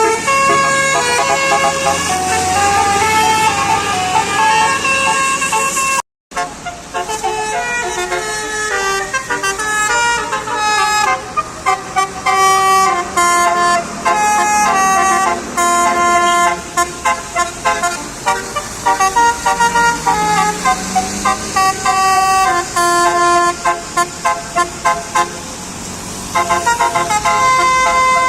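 Bus 'telolet' horns, roof-mounted Basuri multi-trumpet air horns, playing melodic tunes of stepping notes. Later the horn plays fast runs of short, clipped notes. There is a brief dropout about six seconds in.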